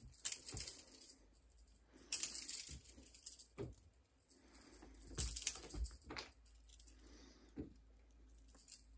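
A small bell or rattle on a cat's wand toy jingling in bursts as the toy is swung and batted, with three louder bursts. Soft thumps of a cat's paws landing on a wooden floor come in the second half.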